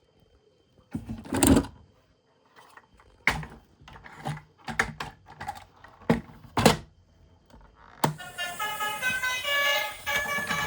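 Several short knocks and clatters, spaced apart. About eight seconds in, music with held notes begins.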